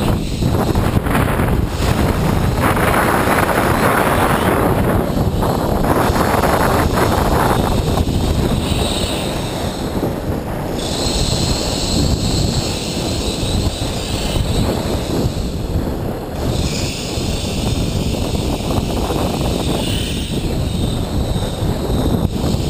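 Loud, steady rumble of a running tram's vibration carried up the trolley pole into a pole-mounted camera, mixed with wind on the microphone. Past the halfway point a high hiss comes in for a few seconds at a time and cuts off suddenly.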